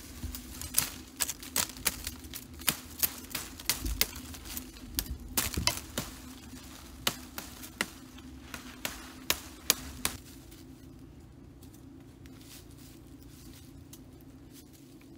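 Dry woody branches cracking and snapping as they are pulled down and cut: an irregular run of sharp cracks and knocks, about two a second, that stops about ten seconds in.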